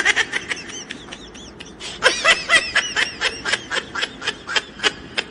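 Person laughing in a long run of quick, pitched bursts, several a second, louder from about two seconds in.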